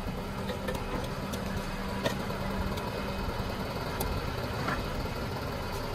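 Concrete mixer truck's diesel engine idling steadily, with a low hum that fades out a little past halfway and a faint click or two.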